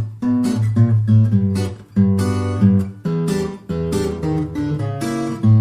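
Background music: acoustic guitar strumming and picking in a steady rhythm.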